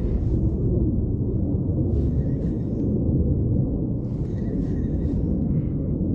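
Wind buffeting the camera's microphone: a steady low rumble, with brief faint hisses about two and four seconds in.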